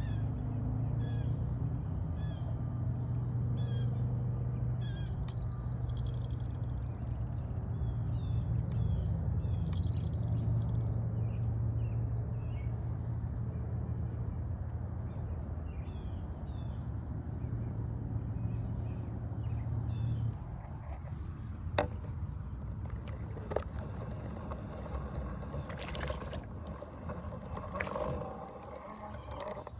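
Outdoor ambience: a steady high insect drone with scattered short bird chirps, over a low hum that stops about two-thirds of the way through. A few sharp clicks come near the end.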